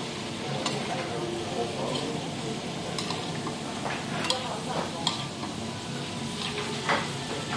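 Vegetables and kimchi sizzling in a shallow pan while metal spoons stir and toss them, with scattered clicks and scrapes of the spoons against the pan.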